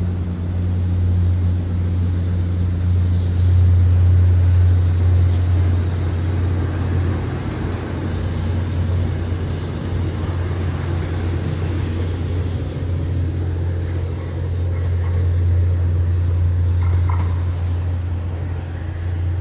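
Steady low rumble of a running vehicle, with a faint high whine that rises slowly over the first few seconds.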